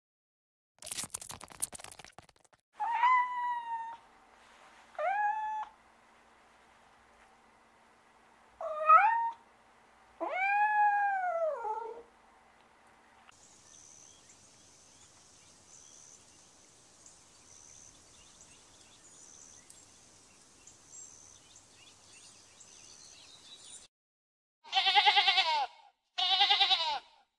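A series of four short pitched animal calls a few seconds apart, each rising and then falling in pitch, like meows. Then a steady high thin whine with faint chirps, and near the end two loud, buzzy calls from an alpaca.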